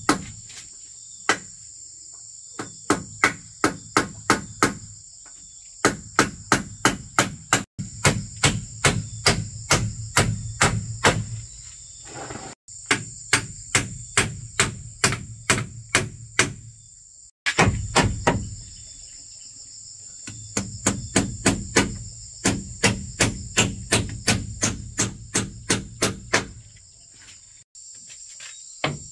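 Hammering: runs of quick, even strikes, about three a second, each run stopping for a second or two before starting again. A steady high drone of insects runs underneath.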